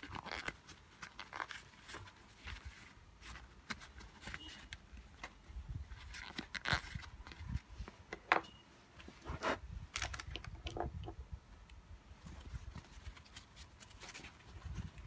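Paper shop towel rustling and crinkling in the hands as a small two-stroke brush-cutter carburetor is wiped dry in it, in irregular crinkles.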